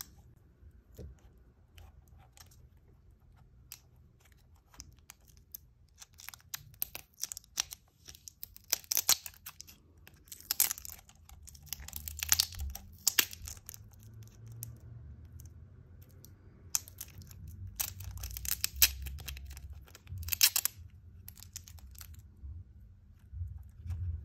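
Clear plastic tape seal being peeled and torn off a plastic gashapon capsule: a series of short, scratchy rips and crinkles, with light clicks of fingers on the plastic shell.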